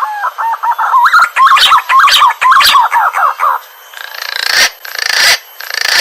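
Green pigeon (punai) calling: a quick run of warbling, up-and-down whistled notes, followed by two or three harsh, noisy bursts near the end. A recorded call of the kind played to lure green pigeons.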